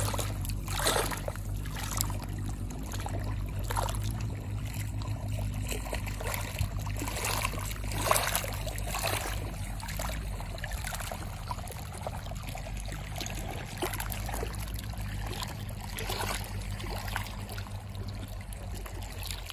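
Small waves lapping and splashing against a stony lakeshore in irregular washes, over a steady low rumble.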